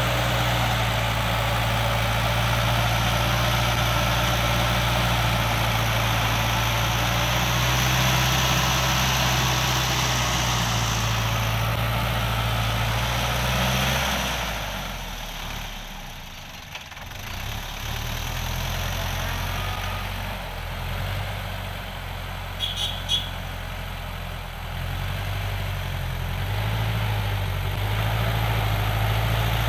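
Sonalika Tiger tractor's diesel engine running steadily under load while it drives a rotavator through the soil. The sound fades for a couple of seconds about halfway through, then comes back.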